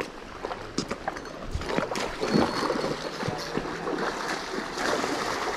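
Splashing in shallow creek water as a hooked chinook salmon is drawn in and netted, over the steady rush of the stream; the splashes are loudest about two seconds in.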